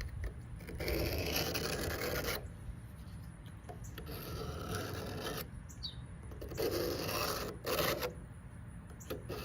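Knife blade drawn along the coarse 350-grit rod of a Sharpal 210N Transforod guided sharpener: three slow rasping strokes on alternating sides of the edge while it is reprofiled.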